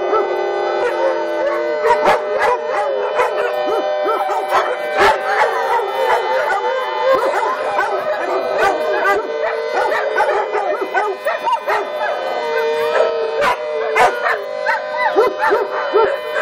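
A pack of dogs howling together, triggered by an outdoor civil-defence warning siren that sounds a steady tone underneath. Sharp barks and yips break in every few seconds.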